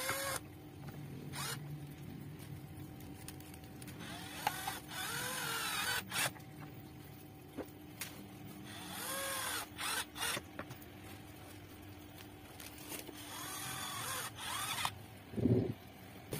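Hand screwdriver backing screws out of a cordless grass trimmer's plastic handle housing: the screws squeak in the plastic in four short spells of twisting, with small clicks between, and a dull knock near the end as the housing is handled.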